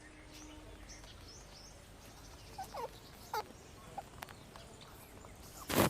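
A few short falling animal calls in the middle, over a faint steady background, then a brief loud noise just before the end.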